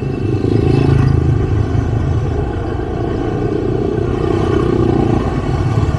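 Small motor scooters riding past close by, one after another, their engines running at low speed; loudest about a second in.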